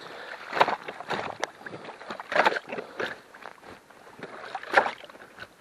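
Ice chisel (pieshnia) chopping down into a waterlogged mat of matted marsh roots and reeds at the bottom of a hole in the ice: a few wet, irregular blows, roughly one every second or two.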